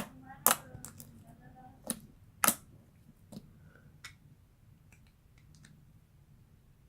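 Slime being squeezed and poked by hand, giving sharp clicking pops, several close together in the first three seconds, then fainter scattered clicks.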